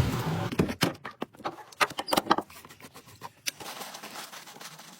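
A series of irregular sharp clicks and knocks, some with a short ring, like parts and tools being handled.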